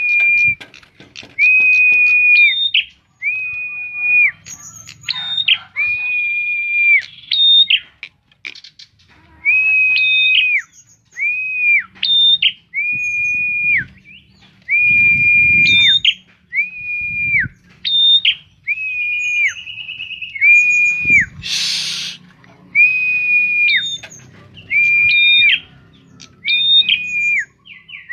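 Prenjak (prinia) giving a long run of loud, high whistled notes, repeated about once a second. Each note is a quick higher pickup followed by a steady held tone of about half a second that drops off at its end. A brief rustling burst about three-quarters of the way through.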